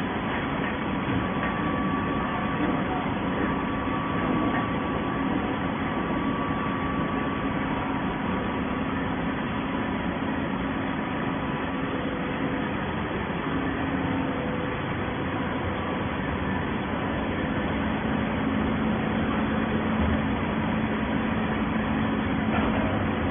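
Waste paper baling machine running with a steady mechanical hum, a few faint held tones over an even noise.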